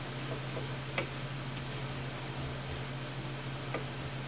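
Sharp wood chisel paring thin shavings off a glued wooden plug in a guitar headstock, heard as a few short ticks, the clearest about a second in and another near the end, over a steady low hum.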